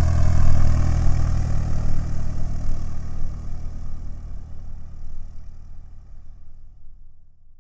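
Cessna 172 single-engine propeller airplane flying away: a steady low engine-and-propeller drone that fades out as the aircraft recedes. The higher tones die first and the low drone last, gone near the end.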